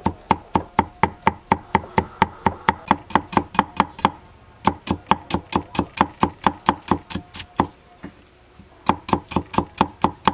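Wide-bladed kitchen knife mincing garlic and shallots on a round wooden chopping block: a quick, even run of knocks, about five a second. The run breaks briefly about four seconds in and again for about a second near eight seconds in, then resumes.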